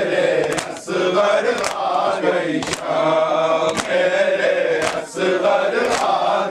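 Male voices chanting a noha, a Muharram mourning lament, with sharp rhythmic strikes about once a second keeping time, typical of matam (chest-beating).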